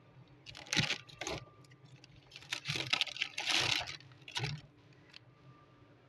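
Bursts of rustling and crinkling as plastic bags and the phone are handled inside a refrigerator: one about a second in, a longer stretch around three to four seconds, and a short one near four and a half seconds. A faint low hum runs underneath.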